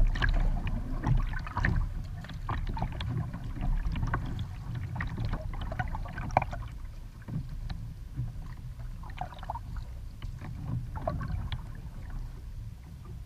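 Kayak paddle blades dipping and splashing in choppy sea water, with water slapping against the plastic hull in irregular splashes over a low rumble.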